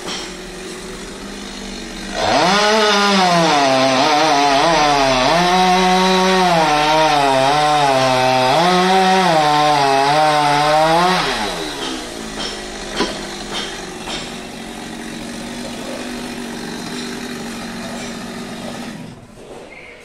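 Two-stroke chainsaw idling, then opened up to full revs about two seconds in and cutting through a coconut palm trunk for about nine seconds, the revs dipping and recovering under load. It drops back to idle and is shut off near the end.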